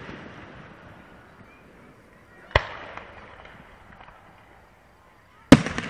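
Aerial fireworks shells bursting: two sharp bangs about three seconds apart, each trailing off in a rolling echo, with the echo of an earlier burst dying away at the start.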